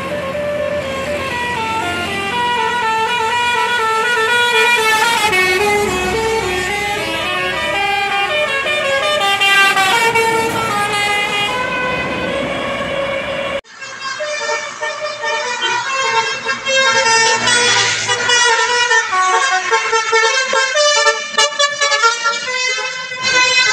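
Bus 'telolet' Basuri musical horn playing a melody of quick stepping notes, several tones sounding together. It breaks off abruptly about 14 seconds in, and another horn tune follows.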